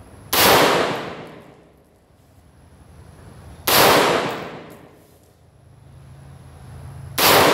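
AR-15 rifle built as an M16A2 clone firing three single shots, spaced about three and a half seconds apart, the last just before the end. Each crack has a short echo that trails off over about a second.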